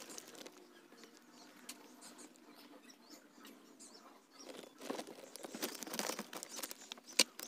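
Faint pattering of hot engine oil draining in a stream from the car's sump drain hole into a catch container, louder for a couple of seconds past the middle. A single sharp click comes near the end.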